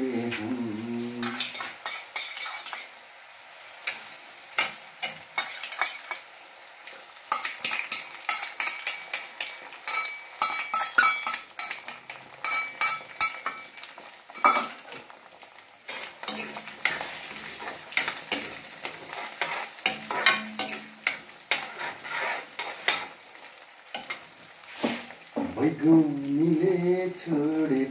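Steel spatula scraping and clinking against a steel kadai as chopped onion and beaten egg fry and sizzle, in many quick, irregular strokes.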